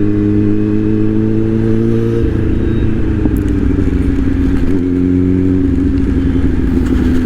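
Kawasaki Z-series motorcycle engine and exhaust running at a steady, moderate engine speed while riding in traffic, the pitch easing down slightly about two seconds in and then holding.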